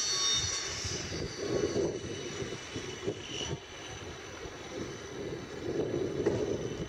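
Hitachi Zaxis 350 excavator's diesel engine running steadily, swelling and easing a little in loudness, with a faint high whine that fades out in the first second or so.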